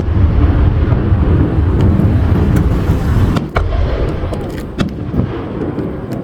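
Aerial fireworks display: a continuous deep rumble of shell bursts and their echoes, with several sharp cracks and pops scattered through it.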